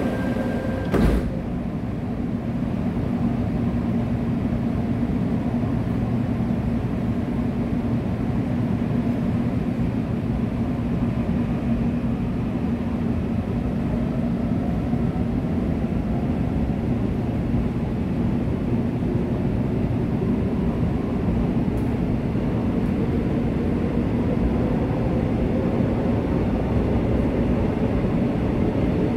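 Interior running noise of a Korail Suin-Bundang line electric commuter train travelling through a tunnel: a steady rumble of wheels on rail with a low hum, and a faint motor whine that shifts in pitch in the second half. A single thump sounds about a second in.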